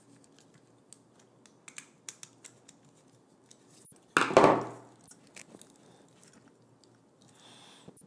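Faint clicks and scrapes of a screwdriver working the terminal screws of an IEC power-cord connector and of the connector being handled, with one louder knock about four seconds in.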